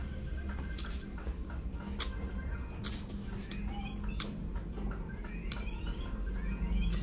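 A steady high, evenly pulsing insect trill, like crickets, with about six sharp clicks scattered through it.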